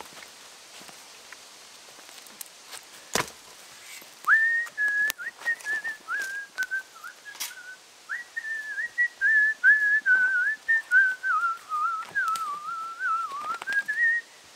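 A man whistling a meandering tune, starting about four seconds in and running for about ten seconds, the pitch drifting slowly downward before rising again at the end. A single sharp knock a little after three seconds in, with a few light clicks.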